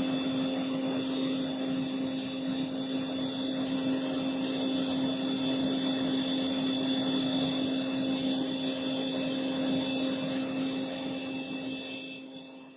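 Electric power tool motor running at a steady speed with a constant whine and a hiss of abrasion, winding down and stopping near the end.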